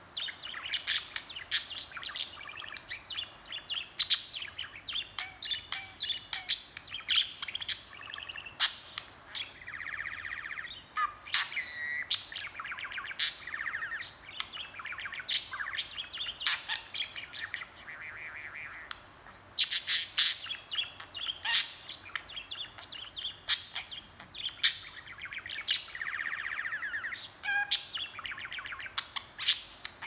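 A budgerigar chattering and warbling without pause: a dense run of short, sharp chirps and clicks, with buzzy, rasping stretches about a third of the way in and again near the end.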